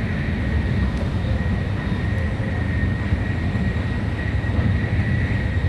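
Steady cabin running noise inside an N700S Shinkansen car at speed: a constant low rumble of wheels and rushing air, with a faint steady high tone above it.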